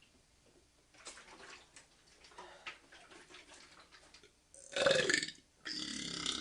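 A man burping twice: a short, loud burp with falling pitch about five seconds in, then a longer, steadier belch with a clear pitch near the end. Faint clicks and rustles come before them.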